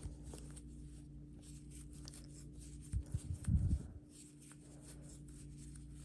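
Soft rustling and fine clicking of yarn and a crochet hook being worked, over a steady low hum. A few dull low thumps come about three seconds in and are the loudest sound.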